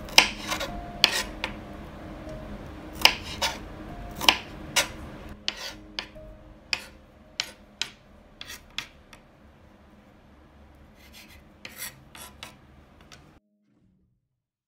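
Ceramic kitchen knife chopping onion on a cutting board: irregular sharp knocks of the blade against the board, some in quick pairs, thinning out and getting quieter, then cutting off abruptly near the end.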